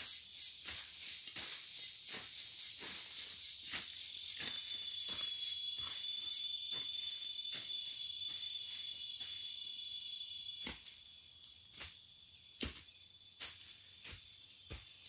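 Hoe strokes scraping and chopping into dry, leafy soil, with an insect calling: quick even pulses at first, then a steady high-pitched buzz for about six seconds that stops abruptly, after which only scattered single hoe strokes remain.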